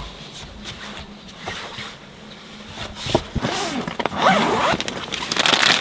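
Rustling and scraping of camping materials being handled and rubbed against each other. Squeaky rubbing sounds come about four seconds in, and the rustling grows louder near the end.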